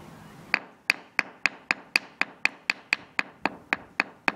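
A hammer tapping again and again on stone paving tile: a quick, even run of sharp taps, about four a second, starting about half a second in.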